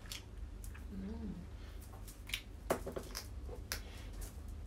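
Crab and mussel shells being cracked and pulled apart by hand: scattered sharp clicks and cracks, several a second at times, with a short hummed "mm" about a second in, over a low steady hum.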